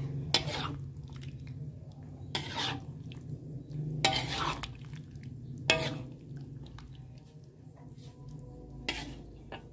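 Metal spatula scraping against a wok as it stirs thick rendang sauce with sliced jengkol beans: five separate strokes, a second or two apart, over a steady low hum.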